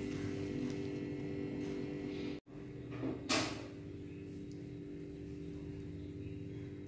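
Steady background hum, cut off for an instant about two and a half seconds in, followed by a short noise just after three seconds.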